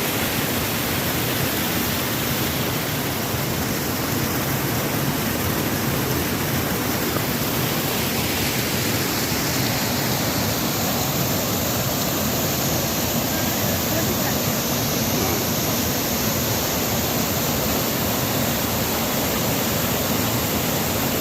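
Mountain valley stream rushing over rocks, a steady loud rumbling of water that does not change.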